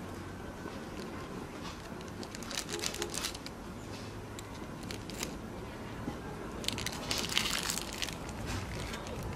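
Crinkling of a foil snack wrapper as a monkey handles it, in two bouts of crackling, about two and a half seconds in and again about seven seconds in.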